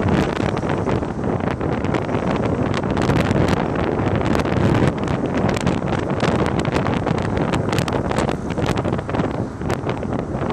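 Wind buffeting the microphone over a steady outdoor rumble, with many short sharp clicks and crackles scattered throughout.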